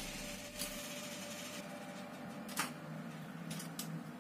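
A few light, separate clicks and taps over a steady low hiss.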